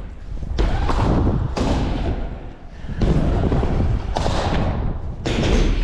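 BMX bike being ridden on wooden skatepark ramps: tyres rolling, with several thuds as the bike lands and hits the ramps about once a second.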